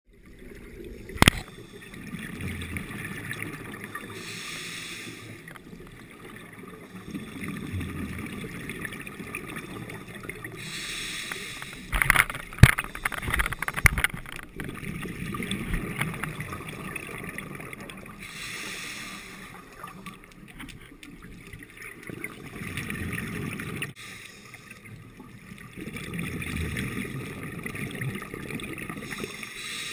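Scuba regulator breathing heard underwater: slow, repeated cycles of bubbling exhalation alternating with a hissing inhalation, about every seven seconds. A few sharp knocks, the loudest around halfway.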